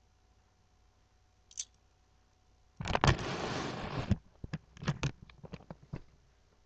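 Handling noise from a webcam being grabbed and repositioned close to its microphone: a loud rustle and scrape lasting about a second, then a quick run of sharp clicks and knocks. A single small click comes before it, about a second and a half in.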